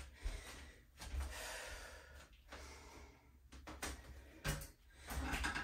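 A woman breathing audibly in short breaths while doing lunges, with a few soft thuds of bare feet stepping on a yoga mat.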